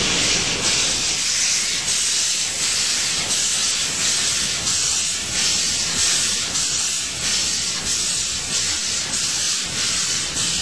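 Steam locomotive 200.05 FNM (Couillet, 1883) working a train, heard from a carriage behind it: a steady hiss of exhaust steam that swells in an even beat, about three chuffs every two seconds.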